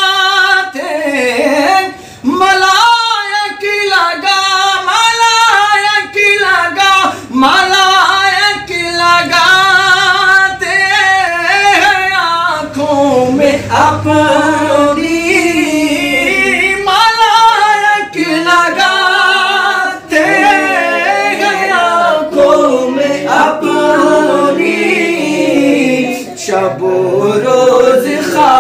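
Unaccompanied male voices singing an Urdu naat together in a continuous melodic chant.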